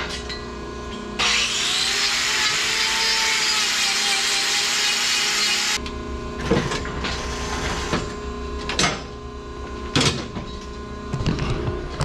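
Power grinder working a cow's hoof: it starts about a second in, grinds for about four and a half seconds with a faint whine, then stops. A few sharp knocks follow.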